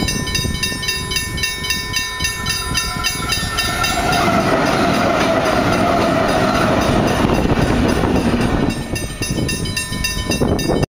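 A consist of five diesel-electric freight locomotives passing at speed: engines and steel wheels on rail make a steady rumble. It grows louder about four seconds in as the lead units go by, with a whine over it, and eases near the end.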